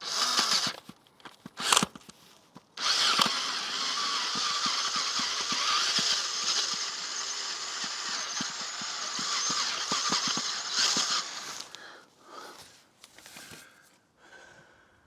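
Electric drill with a greased 14 mm bit drilling out a stripped sump-plug hole in a motorcycle's engine sump, to take a Helicoil thread insert. Two short bursts, then a steady run of about nine seconds, then a few brief, fainter bursts near the end.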